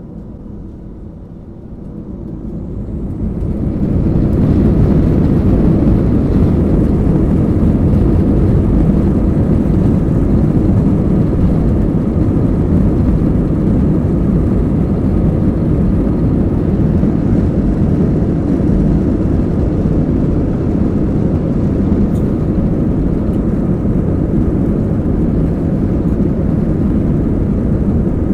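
Airbus A320's jet engines spooling up to takeoff thrust, heard from inside the passenger cabin: the noise swells over about the first four seconds, then holds as a loud, steady rumble through the takeoff roll.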